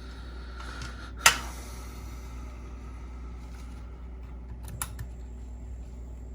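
Cassette being handled in a Sony WM-D6C Walkman's tape compartment: a sharp plastic click about a second in and a lighter one near five seconds, over a steady low hum.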